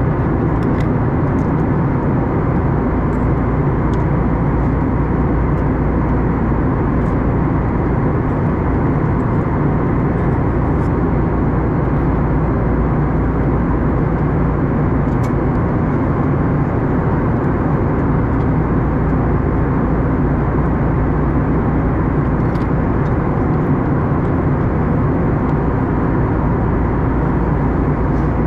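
Steady cabin noise of an Airbus A321neo airliner in flight: a constant rush of engine and airflow noise heard from a window seat, with a few faint ticks.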